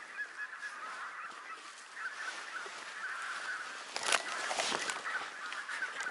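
A distant flock of wild geese keeps up a steady chatter of honking calls. From about four seconds in, dry hay rustles and crackles as the hay blind is opened and hay is pushed off the shotgun barrel.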